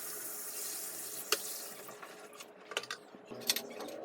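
Water splashing and swishing in the tub of a top-load washing machine that is being filled and loaded by hand, with a few light knocks in the second half.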